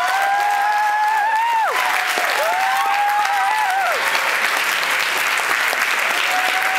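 Audience applauding and cheering. Long, high-pitched held cheers ride over the clapping in the first four seconds, and the clapping grows denser about two seconds in.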